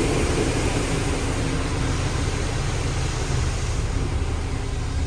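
Car wash running over a car: a steady rushing hiss of water spray with a low rumble underneath.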